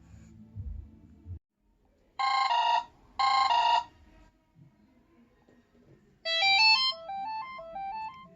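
Ringtones playing from a T-Mobile Coolpad Rogue phone's speaker. A musical tone cuts off about a second and a half in, then come two short ringing bursts a second apart. From about six seconds in, a quick run of electronic notes stepping up and down.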